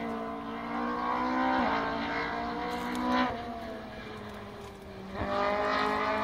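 Rally car engine revving hard, its pitch climbing and dropping at two quick upshifts in the first three seconds. It then backs off to a lower, quieter note, and about five seconds in it is on full throttle again, pitch rising.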